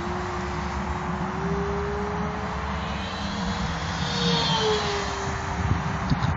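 Motor and propeller of a radio-controlled glider running during a flyover: a steady whine that rises slowly in pitch, then drops about five seconds in as the model passes close by.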